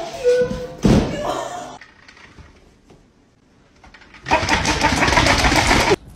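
A person's voice and a thump in the first two seconds, then a small battery toy's motor whirring steadily for about two seconds before cutting off suddenly.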